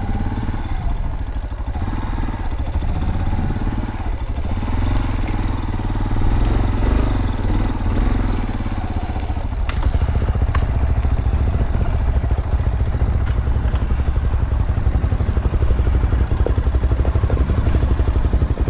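Dirt bike engine running at low speed over rough, rocky ground, with a couple of sharp clicks about halfway through.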